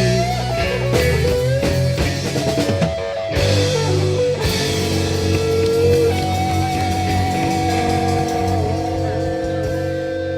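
Electric blues band playing a slow blues: lead electric guitar bends notes and holds them with vibrato over bass, drums and keys. From about halfway in, the band settles into long held notes.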